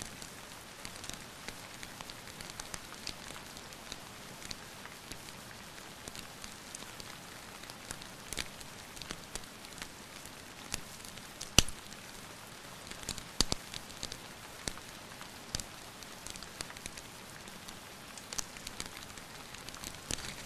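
Steady rain hiss with a wood fire crackling over it, scattered sharp pops, the loudest about halfway through and a few more in quick succession soon after.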